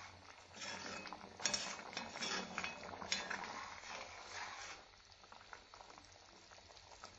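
Thick yogurt-based kofta curry bubbling in a kadai while a metal spoon stirs it, with a few clinks of the spoon against the pan. The stirring and clinks stop about two-thirds of the way through, leaving only faint bubbling.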